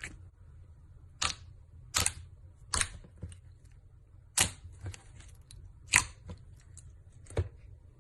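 Slime being squeezed and pressed by hand, giving sharp pops and clicks: about seven loud ones at uneven intervals, with fainter ones in between.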